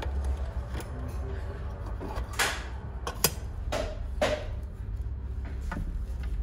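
Workbench handling noise: a few short knocks and scrapes, bunched together in the middle, over a steady low hum.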